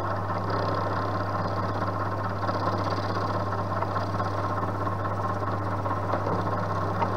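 Milling machine running steadily as a flat-bottomed endmill takes a radial cut into a metal workpiece: an even motor hum with the cutter's cutting noise over it.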